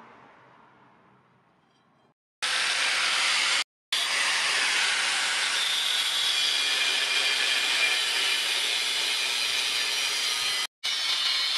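Handheld angle grinder with a thin abrasive cut-off disc cutting through a rusty flat steel bar: a loud, steady high grinding hiss. It starts a couple of seconds in and cuts out abruptly twice for a moment.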